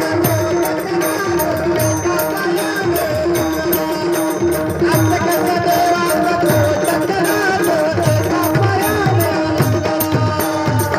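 Marathi gavlan devotional music: tabla playing a steady rhythm, its deep drum strokes falling in pitch, under a sustained melodic accompaniment.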